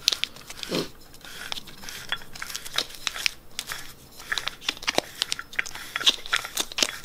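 Clear plastic wrap on a new oil filter crinkling and crackling in the hands as the filter is twisted to unscrew it from a cast aluminium oil filter adapter, with irregular small clicks.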